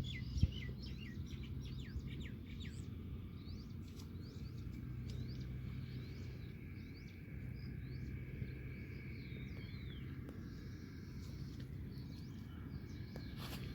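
Birds chirping outdoors, with quick falling chirps crowded into the first few seconds and scattered calls after, over a steady low rumble.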